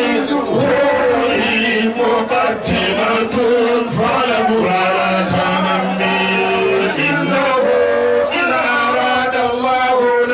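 A man chanting a devotional song into a handheld microphone, amplified over a sound system, with long held notes.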